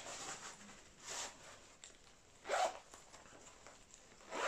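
Pocket zips on a fishing vest being pulled, three short zipper rasps spread over a few seconds.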